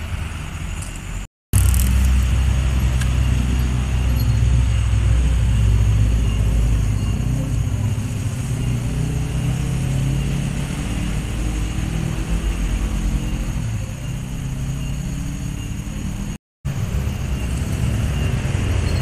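Low, steady rumble of a motor vehicle engine running nearby, its pitch drifting slightly. The sound cuts out briefly twice, about a second and a half in and near the end.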